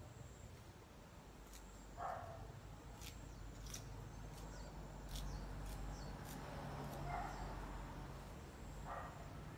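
A dog barks a few times, faint, over light clicks and snaps of leafy vegetable stems being picked by hand.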